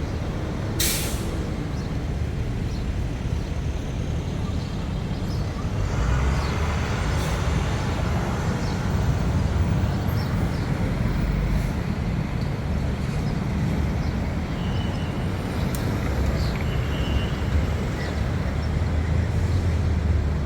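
City street traffic: a steady rumble of vehicle engines and road noise. About a second in there is a short, sharp hiss, and the low rumble grows heavier around six seconds in and again near the end.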